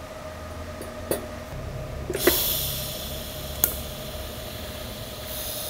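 DC TIG arc from an Everlast PowerTIG 210 EXT at about 92 amps, struck with a high-frequency start to tack carbon steel pipe. A sharp crack about two seconds in as the arc lights, then a steady hiss that fades and comes back near the end, with a few sharp clicks.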